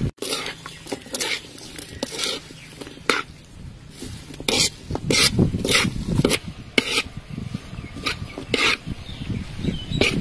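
Metal spatula scraping and knocking against a large wok as vegetables are stir-fried, in irregular strokes about once or twice a second.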